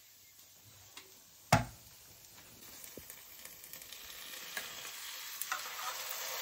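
A single sharp knock about a second and a half in, then chicken pieces and herbs frying in a pan, the sizzle growing steadily louder, with a few light clicks.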